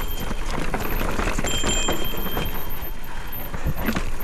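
Specialized Turbo Levo e-mountain bike riding a dirt downhill trail: tyres rolling over dirt and rocks and the bike rattling over bumps, with steady wind noise on the microphone. A thin high whine comes in twice, near the start and around the middle.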